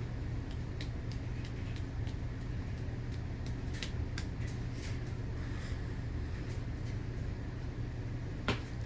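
Emerson Premium 52-inch ceiling fan running: a steady low motor hum under a rush of moving air, with faint irregular ticks and one sharper click near the end.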